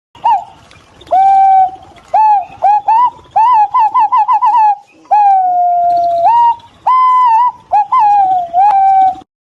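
Green pigeon calling: a string of whistled notes that rise and fall in pitch. In the middle comes a quick run of about seven short notes, then one long, slowly falling whistle.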